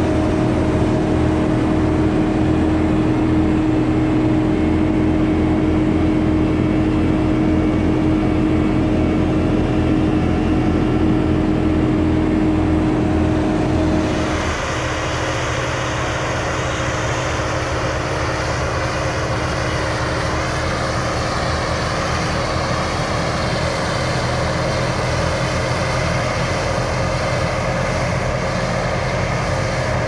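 Kubota SVL95 compact track loader's diesel engine running steadily under load, driving a Skid Pro 84-inch snow blower that is throwing snow, with a steady droning tone. About halfway through the machine sounds farther off and a little quieter, with more hiss.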